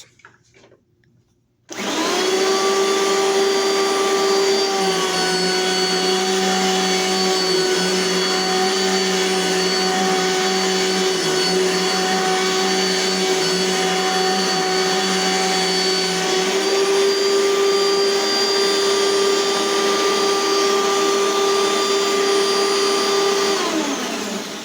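Dirt Devil Light Plus vacuum cleaner switched on, its motor starting abruptly and running with a steady whine. The pitch drops slightly about five seconds in and returns about sixteen seconds in, and near the end it winds down with a falling pitch as it is switched off.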